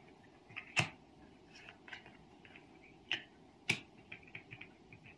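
Tarot cards being laid down and slid into place on a cloth-covered table: a few sharp clicks, the loudest about a second in and two close together near the end, with light taps and rustles between.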